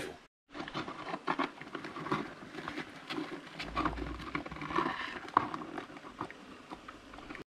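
Live spider crabs shifting in a plastic bucket, their legs and shells making irregular faint clicks and scrapes against the plastic.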